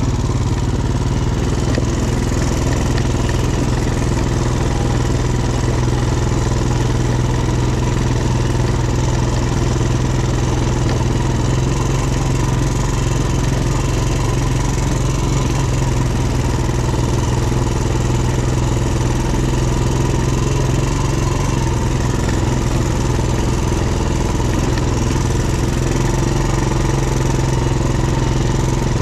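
ATV engine running at a steady, unchanging pace with no let-up or revving.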